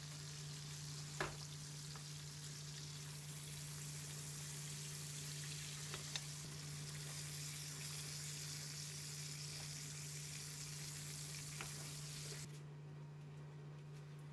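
Steaks sizzling in butter in a frying pan, with a few light taps against the pan. The sizzle cuts off suddenly near the end.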